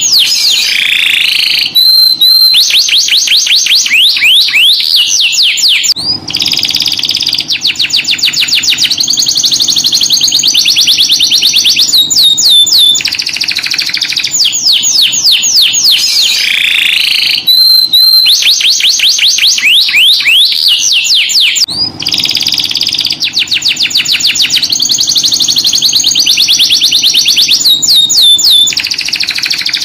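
Domestic canary singing long rolling trills, rapid runs of repeated notes that each slide down in pitch, broken by short pauses. The same run of phrases comes round again about every 16 seconds.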